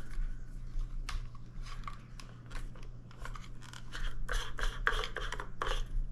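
Hard plastic parts of a KISS Sidewinder rebreather head clicking and scraping as they are handled and screwed back together, with a quick cluster of clicks about four to six seconds in.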